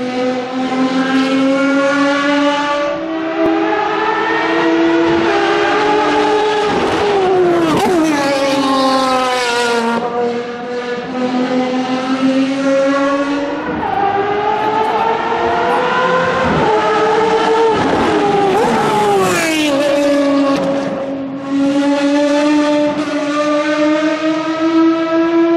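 Ferrari FXX and 599XX Evo V12 race cars at full throttle on the circuit. The engine pitch climbs step by step through the gears, then sweeps sharply down as cars pass, more than once.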